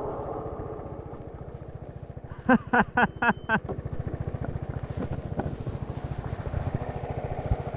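Piaggio MP3 Yourban 300 scooter's single-cylinder engine easing off, then running at a steady pulse. About two and a half seconds in, five loud short pulses come in quick succession.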